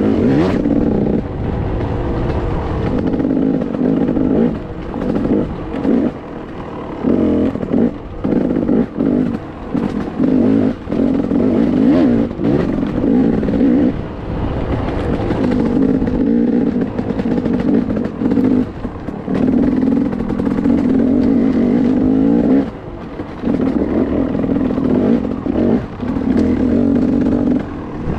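Off-road motorcycle engine running under load, the throttle opening and closing every second or two so the pitch rises and falls. Knocks and rattles from the bike bouncing over rock ledges come through between the revs.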